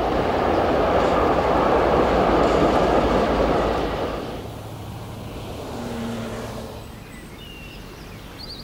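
Shinkansen bullet train running past on an elevated viaduct above city traffic: a loud, steady rushing rumble that dies away after about four seconds, leaving quieter street noise.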